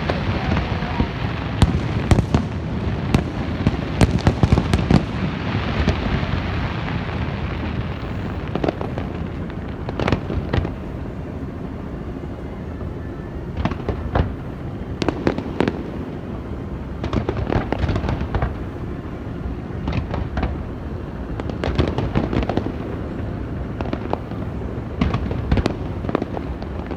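Fireworks going off: a dense barrage of bangs and crackles for the first several seconds, then scattered sharp reports over a continuous rumble.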